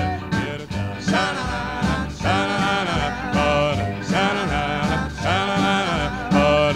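Background music: a 1950s doo-wop vocal group singing in harmony over a band with a steady bass beat.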